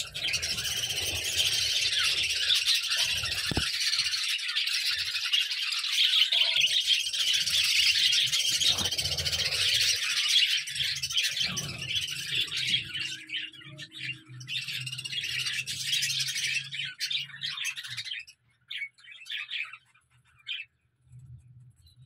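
A flock of budgerigars chattering and chirping together in a dense, continuous din, which falls away sharply about eighteen seconds in to a few scattered chirps.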